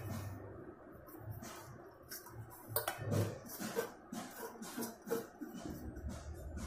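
Faint, scattered light taps and scrapes of a steel plate and utensil against a stainless-steel mixing bowl as chopped herbs and ground spices are pushed in by hand.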